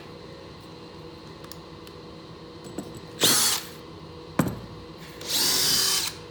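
Power drill motor running in short bursts: a brief whir about three seconds in, a sharp knock a second later, then a longer whir near the end, as a screw is driven.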